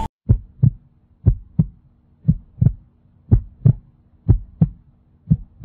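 Heartbeat sound effect: a slow lub-dub double thump repeating about once a second, six times, over a faint low hum.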